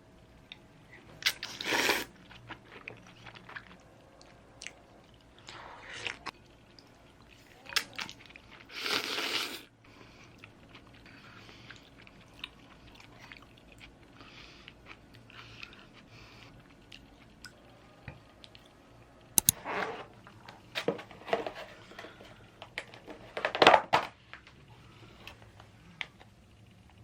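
Close-up eating sounds of a person eating cold kalguksu-noodle soba: chewing, with scattered clicks and a few short, louder noisy bursts.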